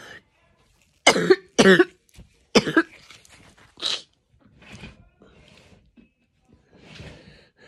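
A woman coughing hard three times in quick succession about a second in, then once more, lighter, about four seconds in: the coughing of someone who says she is suffering an asthma attack with fever.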